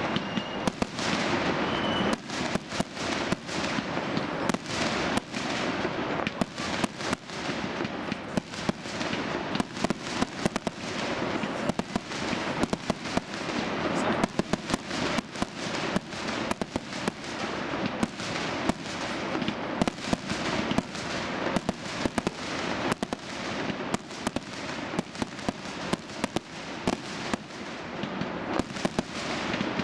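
Aerial fireworks display: shells bursting in quick succession, a dense run of sharp bangs, a few a second, with crackling between them and no break.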